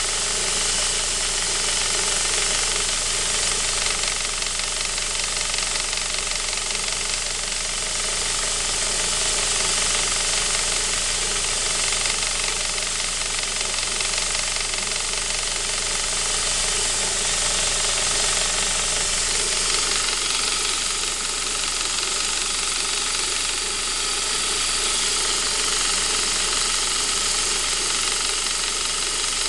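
Saab 9-5's B235 2.3-litre turbo four-cylinder engine running cold, with the strange noise that the owner hears only on a cold engine and wonders may be the timing chain.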